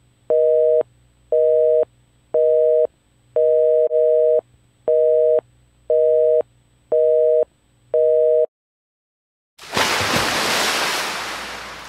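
Telephone busy-signal tone: two steady pitches sounded together in half-second beeps about once a second, eight times, stopping about eight and a half seconds in. After a second of silence, a loud rushing hiss like a breaking wave starts and slowly fades.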